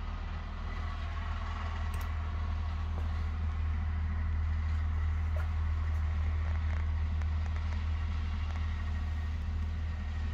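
A steady low mechanical hum, with a few faint ticks over it.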